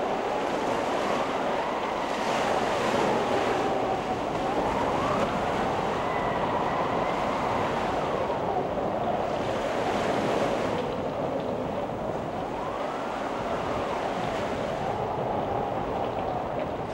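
Gale-force wind howling, with a thin wavering whistle that slowly rises and falls in pitch, over the steady rush of a rough, breaking sea.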